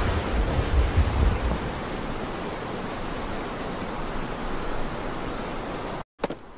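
Intro sound effect: a steady rushing hiss with a low rumble, a little louder in the first two seconds, that cuts off suddenly near the end.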